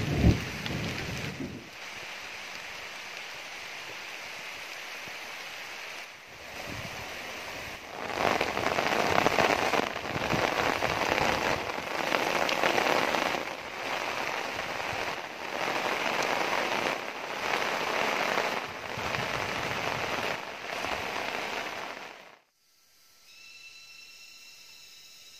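Heavy rain pouring steadily, swelling and easing in strength, with a low rumble at the very start. About 22 seconds in the rain cuts off and insects chirp in thin, steady high tones.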